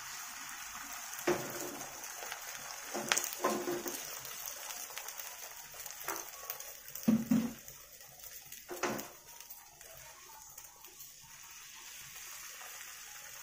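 Beaten eggs frying in hot oil in a nonstick frying pan, a steady high sizzle as the thin omelette sets. A few short knocks and clicks come through it, the loudest about seven and nine seconds in.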